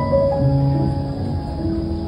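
Background music for a freestyle routine: a melody of held notes moving from one to the next over lower held notes, with a low rushing noise underneath from the vertical wind tunnel.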